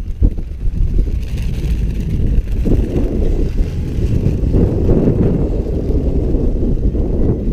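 Engine of a comp safari off-road race vehicle running hard as it crosses the field at a distance, growing louder midway, mixed with wind buffeting the microphone.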